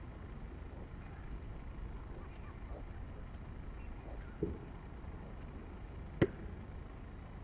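Tennis ball struck by a racket on a volley at the net: one sharp pop about six seconds in, the loudest sound. A duller thump comes about two seconds before it, over a steady low rumble.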